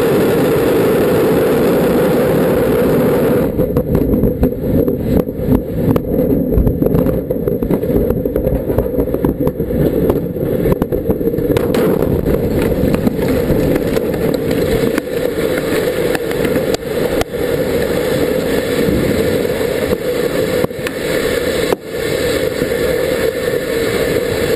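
Antares rocket at lift-off, heard close to the pad: a loud, steady deep roar that turns to dense crackling about three and a half seconds in. The roar and crackle run on unbroken as the rocket fails and explodes over the launch pad.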